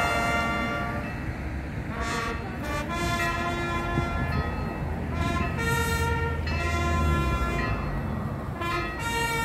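Brass band playing slow, held fanfare notes that change every second or two, with the low rumble of passing cars underneath, heaviest in the middle.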